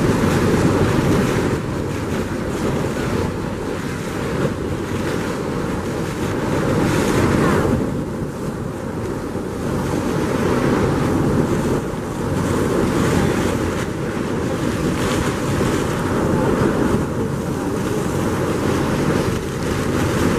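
Wind buffeting the microphone on the deck of a moving cruise boat, over the wash of water beneath the hull. A steady rushing noise that swells and eases every few seconds.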